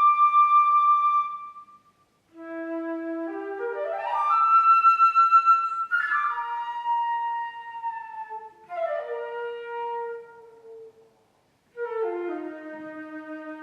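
Solo flute playing phrases of quick rising note runs that settle onto held notes, with brief pauses about two seconds in and again around eleven seconds.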